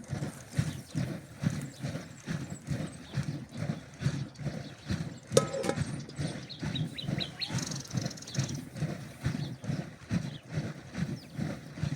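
Leather churning bag of milk being shaken back and forth to make butter, giving a steady rhythm of dull thuds and sloshes about twice a second. A brief sharp call cuts in about five seconds in, and birds chirp faintly.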